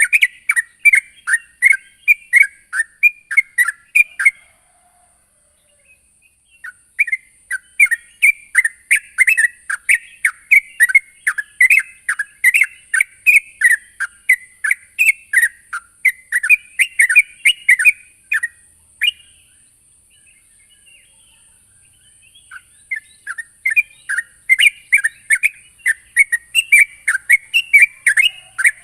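Yellow-vented bulbul (trucukan) singing in full voice, fast strings of short chattering notes. The song comes in three bouts, breaking off after about four seconds, resuming a couple of seconds later for about eleven seconds, then after a near-gap starting again for the last six seconds.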